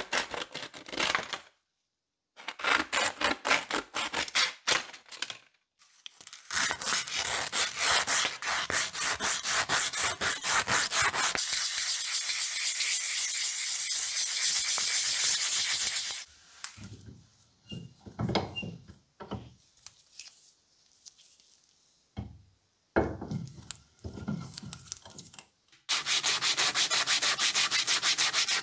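Sandpaper rubbed by hand back and forth over a rusty steel hammer head, in bouts of scraping strokes with short pauses between them; near the end the strokes come fast and even.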